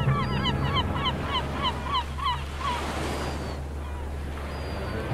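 A rapid series of short honking calls from an animal in the colony, about four a second, stopping about two and a half seconds in. Steady surf and wind noise run underneath.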